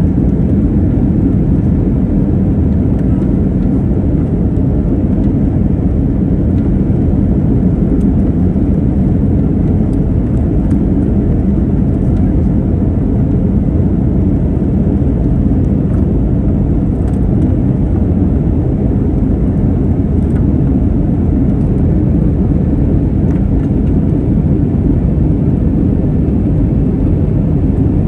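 Steady low rumble inside the cabin of an Airbus A321neo climbing after takeoff: its Pratt & Whitney PW1100G geared turbofan engines at climb power, together with the rush of air past the fuselage.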